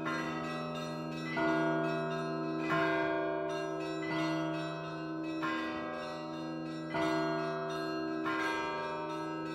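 Russian Orthodox church bells rung from the belfry, a new stroke about every second and a half, each sounding several bells together over the lingering hum of the larger bells.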